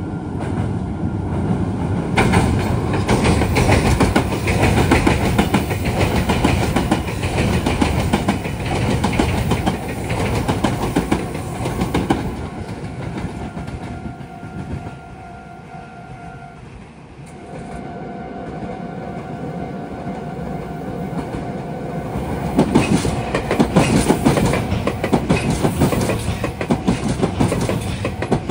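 Electric train rumbling across a steel girder bridge, wheels clattering. Then a level-crossing alarm rings with a steady two-pitch tone, and a Meitetsu 2000 series μSKY electric multiple unit passes close with loud clickety-clack over the rail joints, loudest near the end.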